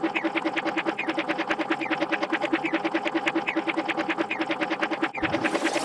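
Sad trombone 'wah wah' sound effect repeated over and over in rapid succession, about ten times a second, forming a steady stutter of muted trombone tones. About five seconds in, a brief falling low sweep with a burst of hiss sounds over it.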